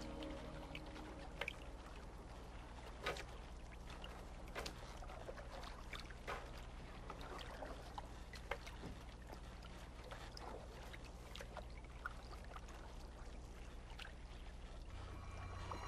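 Sea water gently lapping and splashing, with scattered small splashes and drips as water runs off a fishing net, over a faint steady low hum. A low tone comes in near the end.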